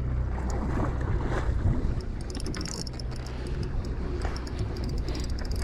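A fishing party boat's engine running steadily at a low hum, with wind and sea noise over it.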